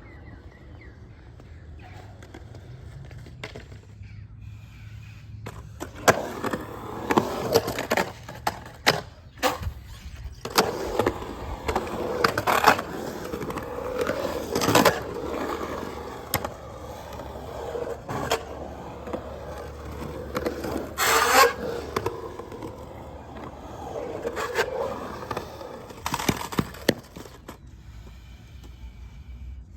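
Skateboard rolling on concrete, its wheels making a steady rolling noise, with many sharp clacks of the board hitting the ground. It starts about six seconds in, after a quieter stretch.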